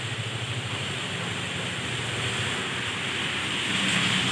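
Steady rushing noise. Near the end a low engine hum joins and the rush grows louder as a car approaches through floodwater.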